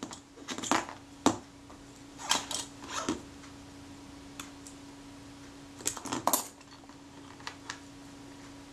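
Light metallic clicks and clinks of small camera parts being handled: the chrome top cover and mechanism of a Retina IIC, in scattered taps. A faint steady hum sits underneath from about a second in.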